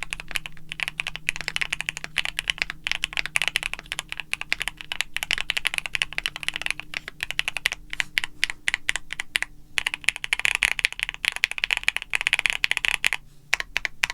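Fast, irregular clicking in runs with a few short pauses, stopping near the end.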